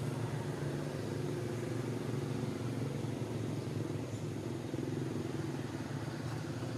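Steady low drone of a running engine, holding an even pitch with no change in level.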